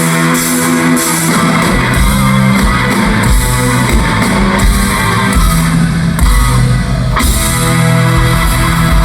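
Rock band playing live: distorted electric guitar over bass and drum kit, with the drums and bass coming in heavily about a second and a half in.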